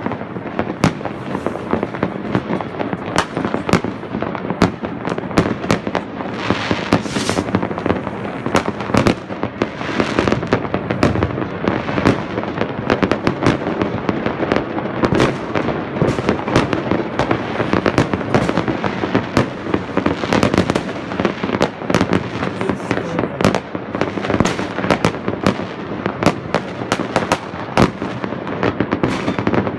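Fireworks and firecrackers going off all over a town at once: a dense, unbroken mix of bangs and reports over a constant background of distant popping and crackling.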